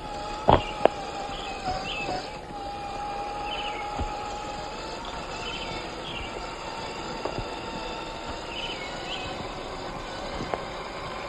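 Electric RC rock crawler's motor and geartrain whining at a steady pitch as it crawls, the whine fading after about halfway, with a few sharp knocks, the loudest a quick pair about half a second in. Birds chirp in the background.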